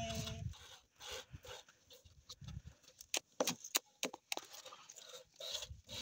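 Goat being milked by hand: thin jets of milk squirting into a plastic container in short, irregular spurts, several a second.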